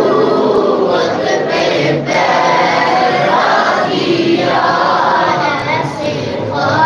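A group of men chanting a devotional recitation together, many voices overlapping.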